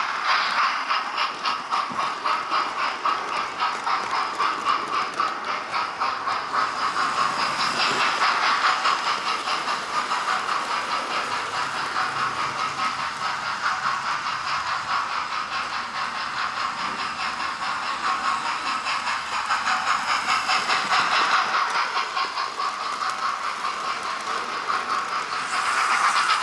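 Hornby TTS sound decoder in an OO gauge GWR Class 4900 'Ketley Hall' model playing steam locomotive chuffing and hiss through its small speaker, in a quick, even rhythm as the model runs. The train rattles on the track underneath.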